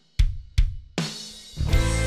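Intro music with a drum kit: after a brief break, three sharp drum hits in quick succession, then the full band comes back in near the end.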